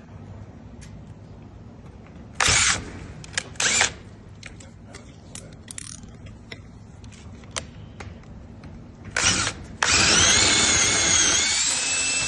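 Power drill drilling out a smart lock's key cylinder to force the lock. It runs in two short bursts a few seconds in, a brief one about nine seconds in, then a long run near the end whose whine wavers in pitch.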